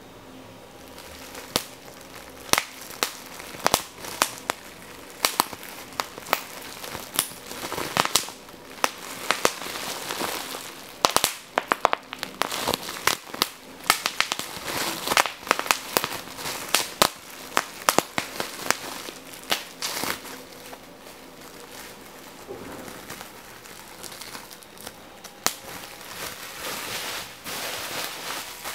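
A fire burning: a steady hiss under frequent sharp crackles and pops, busiest through the middle, with a calmer stretch of mostly hiss and only scattered pops later on.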